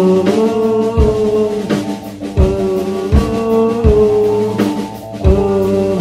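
Band music without vocals: held horn notes over a drum kit, with the kick drum on a steady beat.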